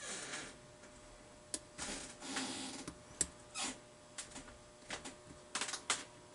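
Lock pick scraping and working the pins inside an old Toronto lock cylinder under tension, in short scratchy stretches with several small sharp clicks from the pick and pins.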